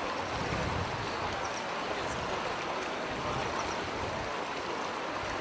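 Steady rushing of a river in flood: fast-flowing floodwater making a continuous, even noise.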